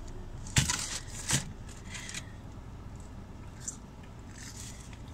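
Paper wrapper and fries packet rustling and crinkling as they are handled, with two sharp crackles in the first second and a half and lighter rustling after.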